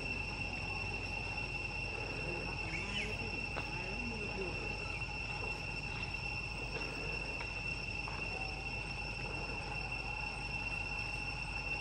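Steady, high-pitched drone of insects calling without a break, with a few faint short chirps over it.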